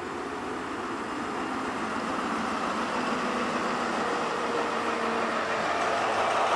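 InterCity 125 High Speed Train with a Class 43 diesel power car moving along the platform: a steady diesel engine drone with the running noise of the coaches, getting gradually louder.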